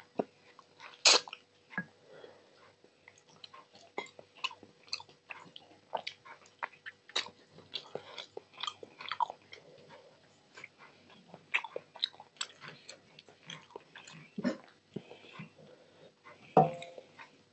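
Close-miked eating sounds: irregular wet mouth clicks and smacks of chewing as rice and curry are eaten by hand. Sharper smacks come about a second in and again near the end.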